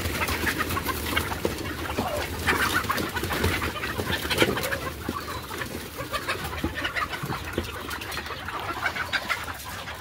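A flock of desi chickens clucking and squawking as they rush out of the coop, with a flurry of wing flaps and scratching among the calls.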